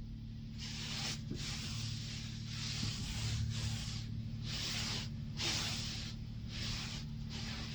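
Water spraying onto a car in a self-serve car wash bay: a hiss that swells and drops about eight times, over a steady low hum.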